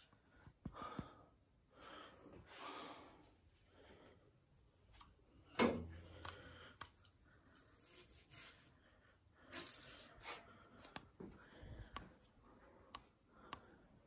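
Faint, scattered knocks, taps and scrapes from a metal pole prodding debris on a terrazzo tile floor and from handling, with one sharper knock about six seconds in and a few soft puffs of noise early on.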